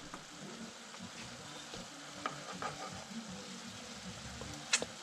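Venison stir-fry frying in a pan on the stove, a steady low sizzle, with a few light clicks from utensils against the pan.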